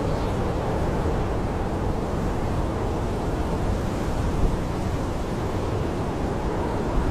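Blizzard wind howling around a camping tent, heard from inside: a steady rushing noise, heaviest in the low end, with no breaks or distinct gusts.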